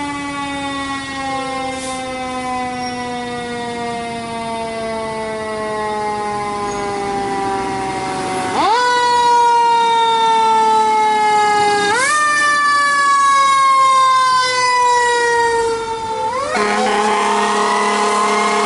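Fire engine's siren in a long, slowly falling wail, then spun up sharply three times, each rise followed by a slower fall as the truck pulls out on an emergency call. A steady lower tone joins near the end.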